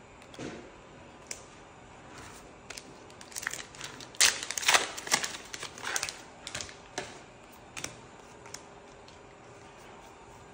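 Trading cards being flicked through in the hand and dropped onto piles on a playmat: a run of quick clicks and snaps, busiest and loudest in the middle and thinning out toward the end.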